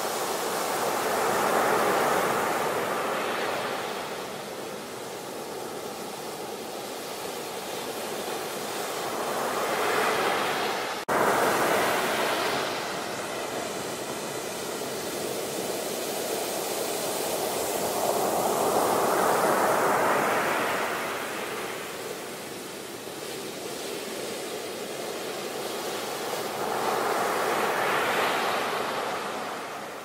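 Ocean surf: waves breaking and washing up the beach, the rush swelling and fading about every eight to nine seconds, with a brief dropout about eleven seconds in.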